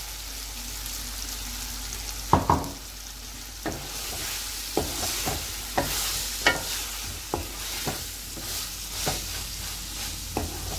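Wooden spoon stirring okra and chicken masala in a stainless-steel pan over a steady sizzle of hot oil, with the spoon knocking against the pan. Two loud knocks come about two seconds in, then lighter knocks about every half second to a second.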